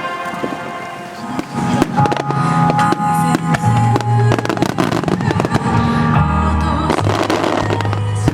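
Fireworks display: from about two seconds in, many shells bang and crackle in quick succession over music played along with the show.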